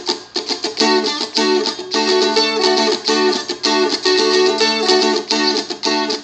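Seagull Merlin fretted dulcimer strummed in a steady, funky rhythm. Melody notes are fretted over a held chord, so the top notes change while the strumming goes on.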